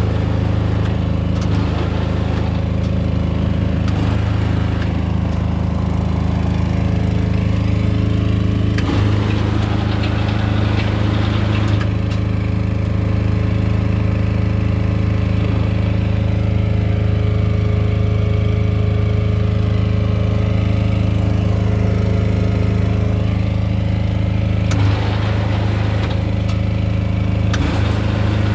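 Electric bar bending machine running steadily, its motor and gearbox giving a loud even hum, with a few light knocks about 9 seconds in and again near the end.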